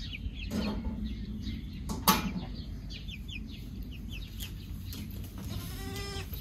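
A domestic goat bleats once, a short call that arches in pitch, a little before the end. Under it runs a steady low rumble, with short high chirps in the first few seconds and one sharp knock about two seconds in, the loudest moment.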